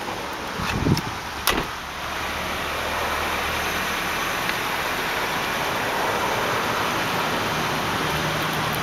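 The driver's door of a 1999 Nissan Sentra SE Limited is pushed shut with two thumps about a second in, then the car's 2-liter 16-valve four-cylinder runs at a steady idle.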